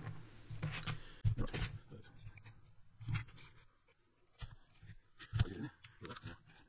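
Scattered clicks and light knocks of a plastic Tamiya M07 Concept RC car chassis being picked up and turned over by hand, a cluster of them in the first two seconds and single ones about 3 and 5.5 seconds in.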